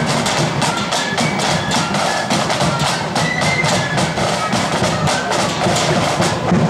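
Blood-and-thunder flute band playing on the march: snare drums beating in quick, dense strokes under a high flute tune, with a bass drum.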